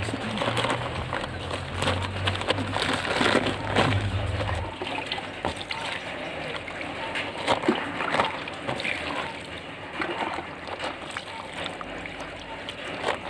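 Water poured from a plastic cup splashing and sloshing onto freshly potted soil in a plastic polybag, with hands working the wet soil.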